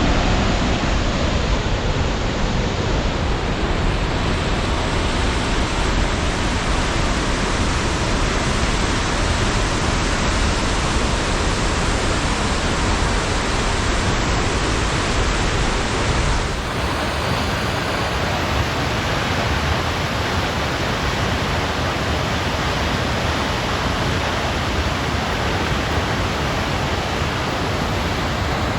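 Large waterfall: a loud, steady rush of falling water that dips slightly about two-thirds of the way in.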